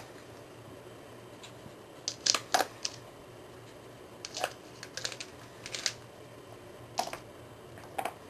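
Hard plastic paw-shaped dog puzzle toy (Paw Hide) clicking and clattering as a poodle puppy noses and paws at its yellow lids: a scatter of about ten sharp clicks and knocks, several in quick runs.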